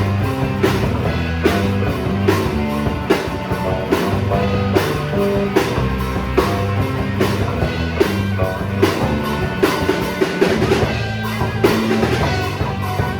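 Rock music played on drum kit, bass and guitar, with a steady beat.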